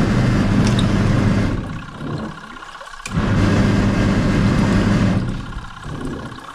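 Samsung SW-655P twin-tub washer's wash motor driving the pulsator agitator in pulses on the heavy wash setting: a steady low motor hum with churning water runs for about two seconds, stops for about a second, runs for about two seconds again, pauses, and starts once more near the end.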